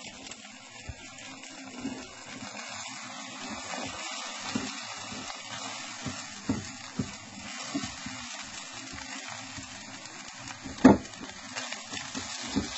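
Eggs sizzling steadily in bacon grease in a nonstick frying pan as they are scrambled with a silicone spatula, with scattered soft taps and scrapes of the spatula against the pan and one sharper knock near the end.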